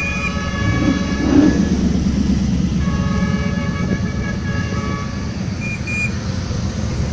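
Classic American cars' engines running low and steady as they drive slowly past, swelling briefly about a second in. A steady horn-like tone sounds over them for about two seconds, then again from about three seconds in.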